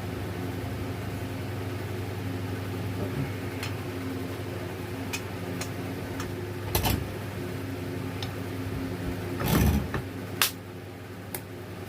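Steady low mechanical hum, with scattered light clicks and knocks of metal alternator parts being handled during reassembly. The loudest is a short rattle about two-thirds of the way through.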